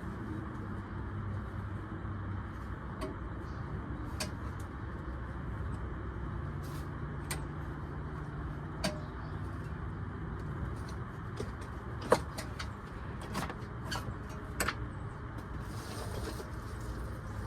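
Scattered sharp clicks and taps of hand tools on metal parts over a steady low hum, with the loudest click about twelve seconds in.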